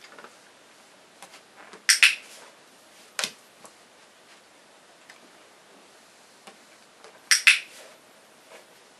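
Dog-training clicker clicked twice, about five seconds apart, each a quick sharp click-clack marking the moment the dog gets the behaviour right. A softer tap comes a second after the first click.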